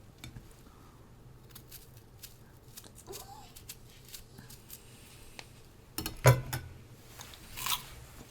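Knife cutting through a crisp, hard-to-cut Korean pear: scattered small clicks and scrapes, with a louder knock about six seconds in.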